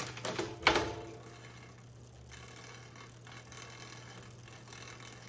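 Bicycle drivetrain turned by hand in a repair stand: a clatter of clicks as the chain shifts across the rear cogs about half a second in, then the chain and cogs running quietly. In big ring and small cog the chain rubs on the front derailleur cage, a sign the front derailleur needs adjusting.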